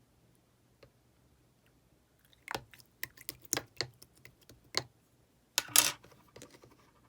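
Slime being pressed and squeezed by hand. From about two and a half seconds in it gives a quick run of sharp clicks and pops, then one louder, longer crackling pop a little before the end.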